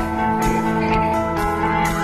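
Background music: plucked guitar over a steady beat.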